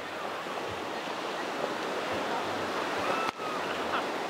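Surf washing up on a sandy beach, a steady rush of waves that grows a little louder toward the end, with faint voices in the distance.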